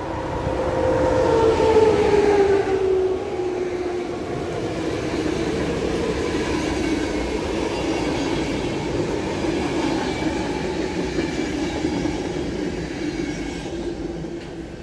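A PKP Intercity EP09 electric locomotive passing at speed, its whine falling in pitch as it goes by and loudest about two seconds in. Then comes the steady rolling of its MÁV-START passenger coaches over the rails, easing off near the end.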